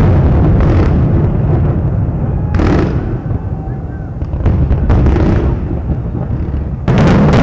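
Fireworks display: aerial shells bursting in a string of overlapping booms over a continuous low rumble, with the loudest bang near the end.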